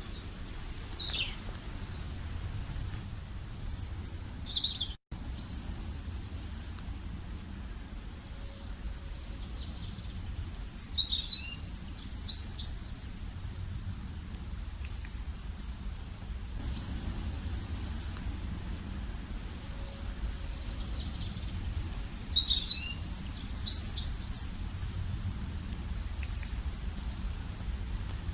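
Small birds chirping and twittering in short bursts of song, the loudest phrases twice about eleven seconds apart, over a steady low background rumble.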